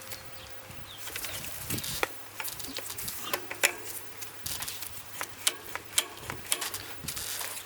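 A run of irregular sharp clicks and light knocks, several a second at the busiest.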